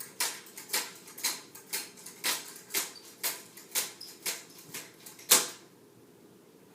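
Colour guard rifle being spun in drop spins, each turn through the air giving a short whoosh about twice a second, eleven in all, the last near the end of the run the loudest.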